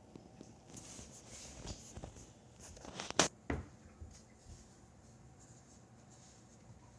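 Graphics card fan on a Zotac GTX 1080 AMP Edition, running with irregular scratchy ticks and two sharp clicks around the middle over a faint steady hum. The noise is the sign of a defective right fan.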